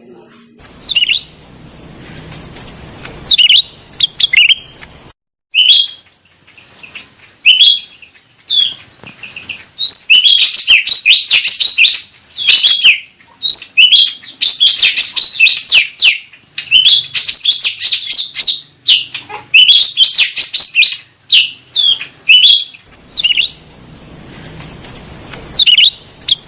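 Cucak rante bird calling: scattered short, high chirps, then from about ten seconds in, long fast runs of sharp chattering notes broken by brief pauses, easing back to a few single chirps near the end.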